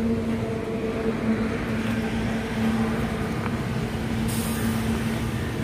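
A steady low mechanical hum holding one constant pitch. A faint hiss joins it about four seconds in.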